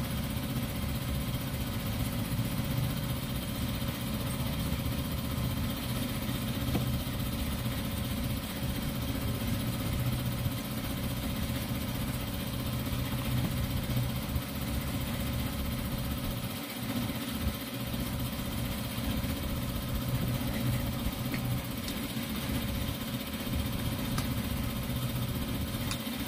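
An engine or motor running steadily at idle, a continuous low hum, easing off slightly for a moment about two-thirds of the way through.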